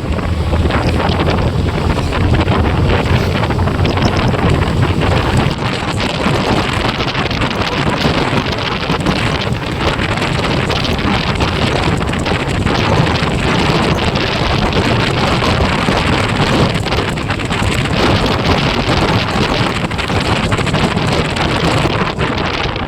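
Steady, loud wind rushing over the microphone of a moving motorcycle.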